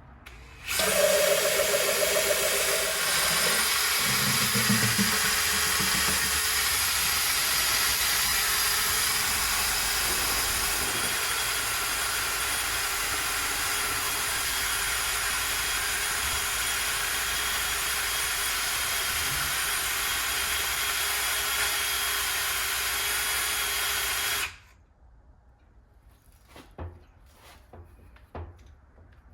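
Chainsaw running steadily at full speed for about 24 seconds, starting about a second in and cutting off abruptly.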